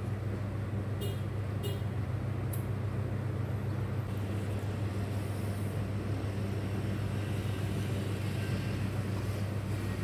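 A steady low hum, like a motor or appliance running, with a few light clicks in the first few seconds.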